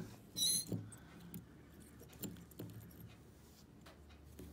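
Metal parts of a cut-open Bosch electrohydraulic actuator (EHA) fuel valve clinking and scraping as its brass body is prised apart by hand. There is a short metallic scrape with a high ring about half a second in, then a few light clicks and taps as the pieces are handled.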